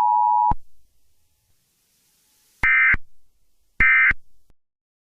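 Emergency Alert System attention signal, a steady two-tone beep, cuts off sharply about half a second in. Then come two short screeching digital data bursts (SAME code) about a second apart.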